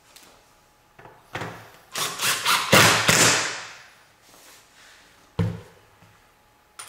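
A cordless driver runs a screw down into the plastic Kreg K5 jig in a short, loud, uneven burst about two seconds in. It is snugged rather than tightened hard, so as not to crack the plastic. Knocks of handling come before it, and a dull thud comes about five seconds in as the driver is set down on the bench.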